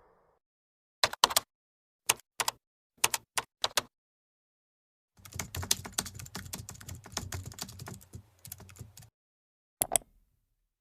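Computer keyboard typing. A few separate key presses come in small groups, then a quick run of typing lasts about four seconds, and two more key presses follow near the end.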